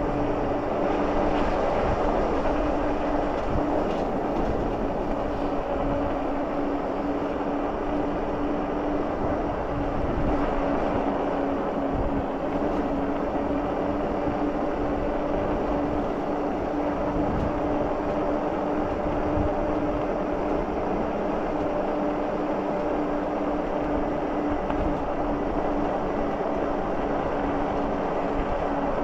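Engwe Engine Pro e-bike rolling downhill at about 16 mph with its direct-drive hub motor regenerating: a steady hum with a constant tone over tyre and wind noise.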